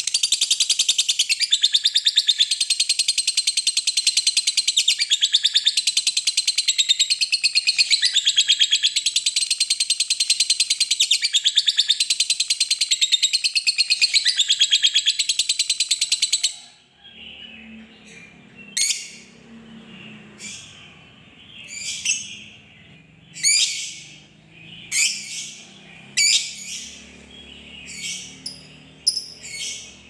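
Lovebird's ngekek: a long, unbroken, very fast high-pitched rattling chatter that cuts off suddenly a little past halfway, followed by a dozen or so separate short, sharp chirps.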